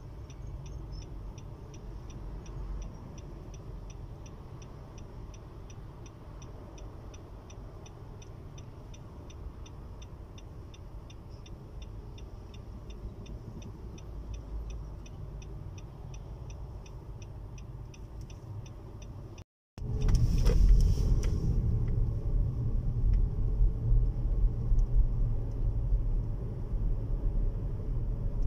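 Car cabin noise while driving: a steady low engine and road rumble with a light, fast, regular ticking over it. About two-thirds of the way in, the sound drops out for a moment and comes back as a louder, heavier road rumble.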